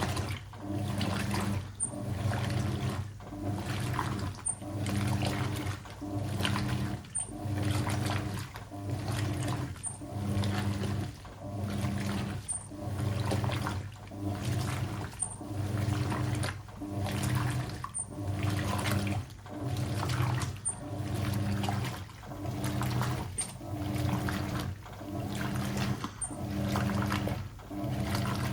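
Hoover 800RL top-loading washing machine agitating on its regular wash cycle. The motor hums through each long agitator stroke and water sloshes, with a short pause between strokes, about one stroke every 1.3 seconds.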